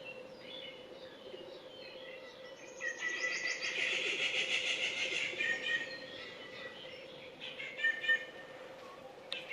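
Birds chirping, with a dense burst of rapid chattering calls from about three to six seconds in and a few sharp chirps near the end, over a steady low hum.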